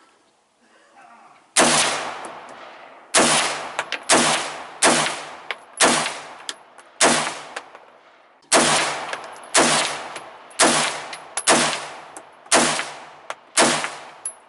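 A .223 rifle fired about a dozen times in quick succession, roughly a shot a second, starting about a second and a half in; each shot echoes and dies away before the next.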